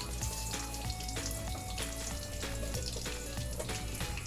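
Chicken burger patties frying in oil, a steady sizzle with crackles, under background music with a simple stepping melody and a steady bass.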